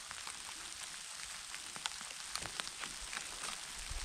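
Rain falling through the trees: a steady hiss with many separate sharp drop ticks.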